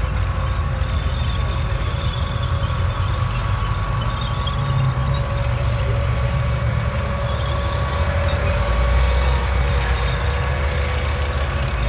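Tanks driving around the arena: a steady low engine rumble with a thin, steady whine above it.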